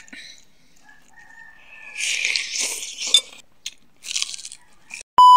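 Close crunching and chewing as fried fish is bitten into, in two bouts. Near the end a loud, steady electronic beep starts abruptly.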